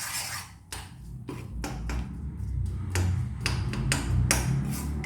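A spoon scraping and knocking in a pan while stirring melted jaggery syrup, in a string of irregular clicks and taps. A low hum rises underneath from about two seconds in.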